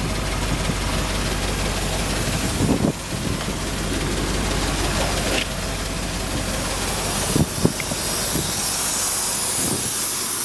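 Engine running at idle on a GEET fuel processor: a steady low hum under a broad hiss, with two short knocks about seven and a half seconds in.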